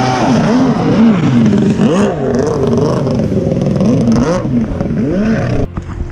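Two-stroke triple-cylinder 1100cc engine in a stand-up Kawasaki 650SX jet ski running hard, its pitch rising and falling again and again as the throttle comes on and off. The sound cuts off suddenly near the end.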